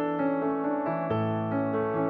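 Background music: a keyboard playing a melody of single held notes that change every half second or so.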